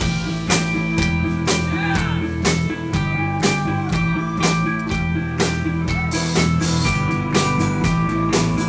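Live band playing an instrumental passage: acoustic guitar strummed over a steady drum-kit beat, about two hits a second.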